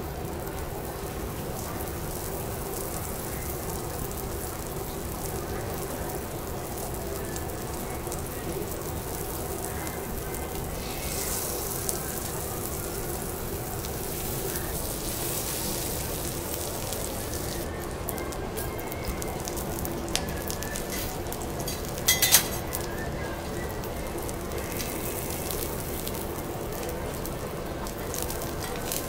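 Foie gras slices sizzling on a hot teppanyaki steel griddle, the hiss swelling for a few seconds around the middle. About three quarters of the way through comes a quick cluster of sharp metallic clicks from the utensils against the griddle.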